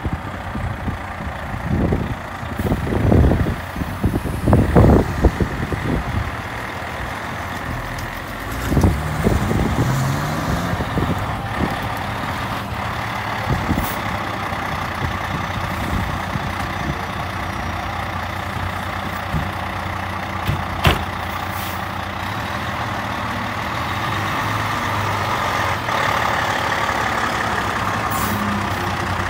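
Diesel engine of a fire department aerial ladder truck running as the truck manoeuvres at low speed, revving up about nine seconds in, with low rumbling bursts in the first few seconds and a short sharp hiss of the air brakes about two-thirds of the way through.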